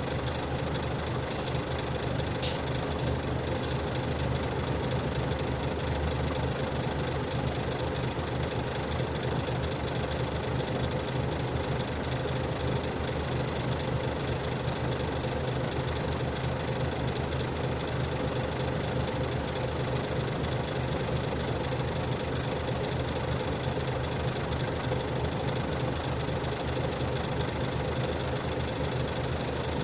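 Nissan Diesel city bus's diesel engine idling steadily, heard from the floor inside the cabin, with a single short sharp click about two seconds in.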